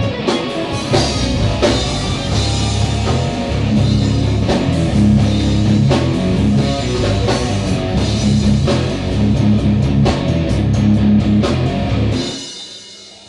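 Heavy metal band playing live: distorted electric guitars, bass guitar and a Mapex drum kit. The band stops near the end, leaving a low hum.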